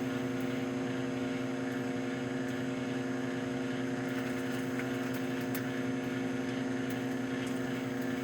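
Farberware voice-controlled microwave oven running partway through a 4-minute cook: a steady, even hum.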